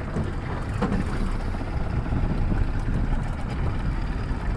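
Steady low rumble and wash of a small outboard-powered fishing boat at sea: the outboard motor running, with water against the hull and wind on the microphone.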